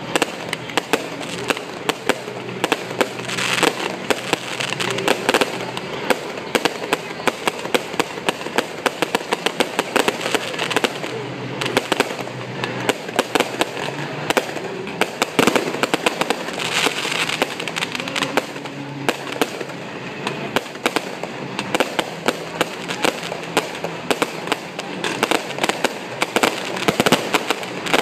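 Aerial fireworks display: a dense, unbroken barrage of sharp pops and crackles from bursting shells, many reports a second.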